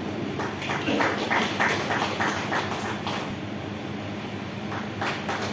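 An audience clapping together in a steady rhythm, about three claps a second, as diplomas are handed out. The clapping pauses for over a second, then picks up again near the end.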